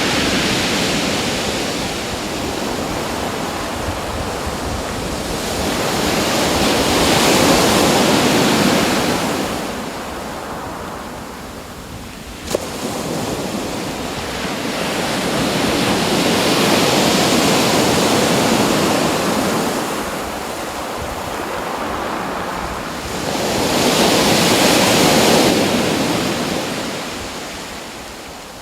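Ocean waves breaking and washing in, a rushing surge that swells and fades about every eight or nine seconds. A single sharp click about halfway through.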